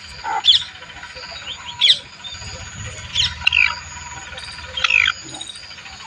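Grey francolin calling: about five short, shrill notes, each a quick sweep in pitch, spaced roughly a second or so apart.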